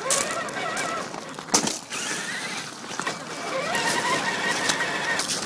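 Small electric motor of a radio-controlled model truck whining as it drives, its pitch wavering and then holding steadier, with a few sharp knocks from the rough ground.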